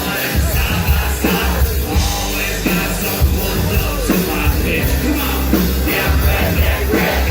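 Live band music played loud through a PA, with heavy bass and a voice singing or rapping over it.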